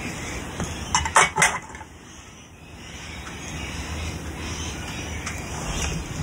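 Sharp metallic clinks, three in quick succession about a second in, as a hand tool knocks against the metal switch and relay parts in an electromechanical pinball machine's wiring.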